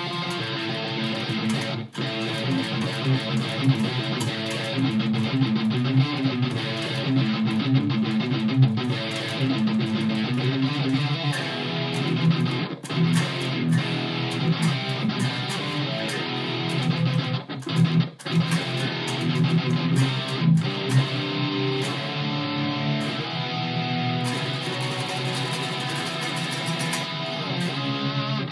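Gibson Flying V B-2 electric guitar on its bridge pickup, played through an amplifier: a continuous run of riffs and chords, with brief stops about two seconds in and again near the middle.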